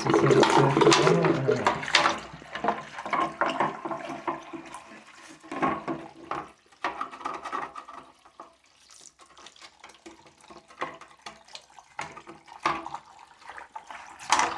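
Tap water running and splashing as a scooter part is rinsed out in a sink: loud for about the first two seconds, then quieter, irregular splashes and knocks.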